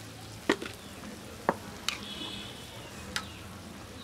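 Metal spatula stirring and scraping a curry of arum lobes and small prawns in a metal wok, knocking against the pan about four times, over a steady low sizzle of the frying curry.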